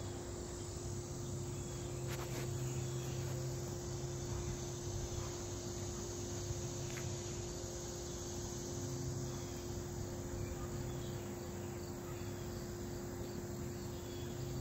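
Steady, unbroken chorus of insects.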